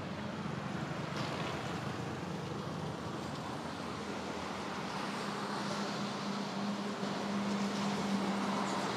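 Steady road traffic noise with a constant low hum, getting slightly louder near the end.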